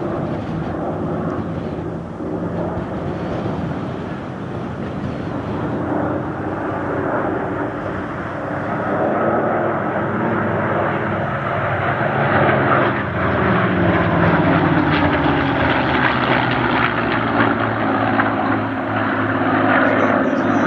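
Piston-engined propeller warbird flying past. The engines drone, grow louder over the second half, and drop in pitch as the aircraft goes by.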